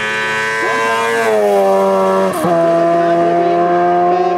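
Racing sidecar outfit's four-stroke engine of up to 1200 cc running hard. Its pitch falls about a second in, breaks off briefly about halfway, then holds steady at a lower pitch.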